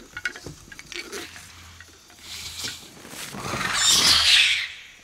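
Hissing screech of a large winged alien creature as it flies up out of the rafters, a film sound effect. It swells from about three seconds in, is loudest near four seconds, and fades by the end, after some light clicks and rustles.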